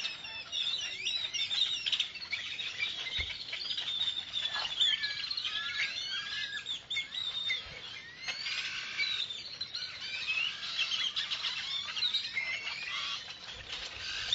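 Dense chorus of many different tropical forest birds chirping, whistling and calling over one another without a break, in a field recording from a Costa Rican forest.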